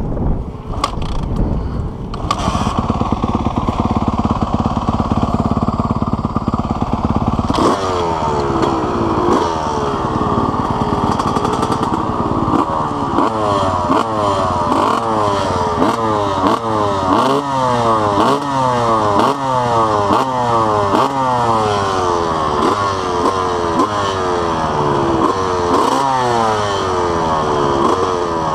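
Dirt bike engine running close by, steady for the first several seconds, then revved over and over from about eight seconds in, its pitch swinging up and down roughly once a second.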